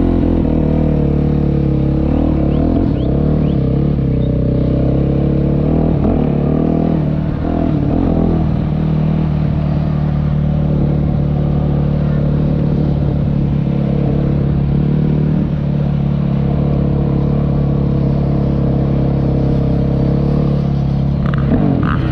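Yamaha YZ motocross bike's engine running under the rider at low, even throttle, with brief changes in pitch about six to eight seconds in and again near the end.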